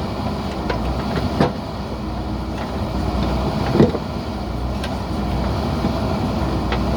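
JCB backhoe loader's diesel engine running steadily under work, with two sharp knocks about a second and a half in and near four seconds in.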